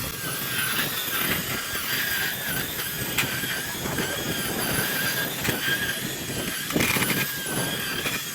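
Lawn edger running, its blade riding along the concrete edge of the lawn, with a steady high whine and a few sharp ticks.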